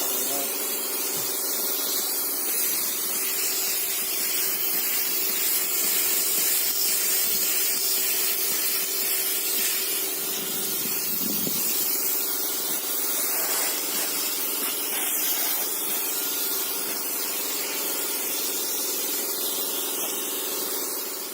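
A steady hiss like a spray, with a faint steady hum beneath it, fading out at the end.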